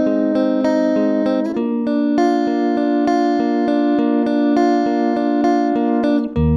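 Instrumental music: sustained electric guitar chords from a Stratocaster-style guitar over a steady programmed drum beat. The chord changes about a second and a half in, and after a brief dip near the end a low bass line enters.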